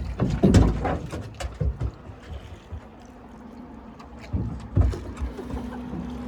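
Drift boat being rowed on a river: water sounds with scattered knocks and low thumps, heaviest about a second in and again near five seconds.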